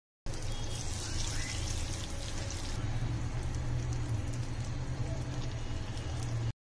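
Butter sizzling in a hot nonstick frying pan, then two eggs frying in it, over a steady low hum. The sizzle turns softer about three seconds in.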